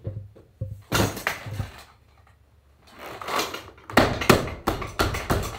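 Saddle-seat leather being pressed, rubbed and pulled by hand over a saddle tree, giving irregular rubbing and knocking noises. About four seconds in, background music with a steady percussive beat of about three strikes a second comes in.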